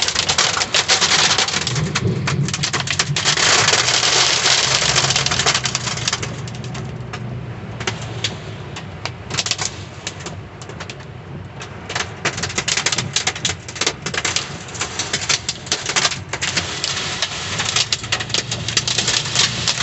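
Heavy supercell downpour beating on a vehicle: a dense hiss full of sharp drop impacts. It eases for a few seconds midway, then comes back as hard as before.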